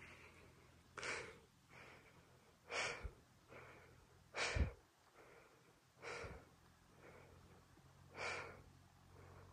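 A person breathing hard, faint, with a breath about every one and a half to two seconds and louder and softer breaths alternating: out of breath while climbing a steep path.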